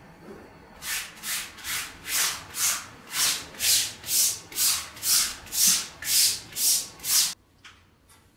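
Scrubbing of a cloth spread on a concrete floor: rhythmic back-and-forth hissing strokes, about two a second, that cut off suddenly near the end.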